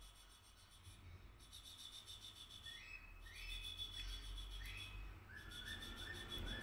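Faint bird calls: short whistled notes repeated a few times, then a quick run of lower notes near the end, over a steady high-pitched ringing and a low rumble.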